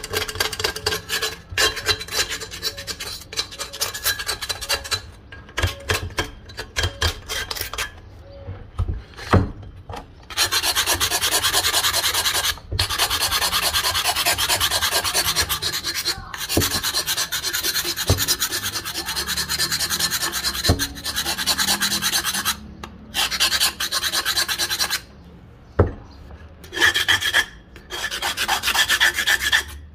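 A knife blade scraping rusty crust off an old cast-iron pot. It starts as quick, separate strokes, becomes a long, nearly continuous scrape, then stops briefly and resumes in strokes near the end.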